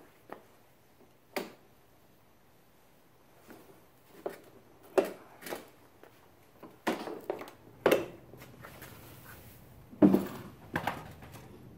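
Scattered knocks and clunks from a loaded wooden workbench on retractable steel-and-urethane casters as the caster pedals are worked and the bench is shifted on a concrete floor. A few light clicks come first, then heavier clunks, and the loudest one falls about ten seconds in.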